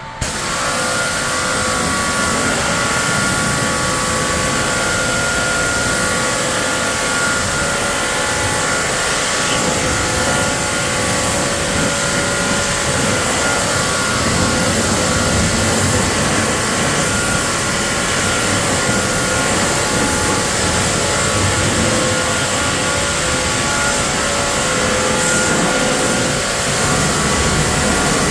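Pressure washer running, spraying water onto a car: a loud, steady hiss of spray over a steady motor whine, switching on suddenly and holding at one level.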